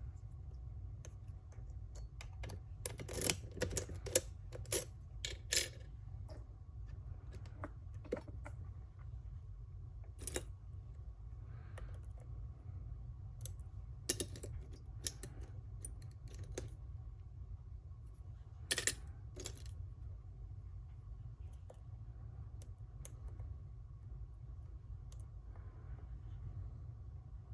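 Small metallic clicks and taps of lock-picking tools working in a Schlage Primus lock cylinder, scattered and irregular, with a quick run of clicks between about three and six seconds in, over a steady low hum.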